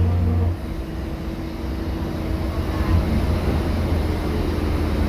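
City bus drivetrain while driving: a loud steady engine hum drops away about half a second in, leaving road rumble and a thin steady whine from the rear differential as the level slowly builds again.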